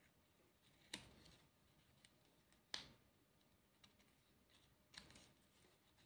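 Paper pieces being handled and pressed onto a paper plate: three sharp clicks about two seconds apart, with faint paper rustling between them.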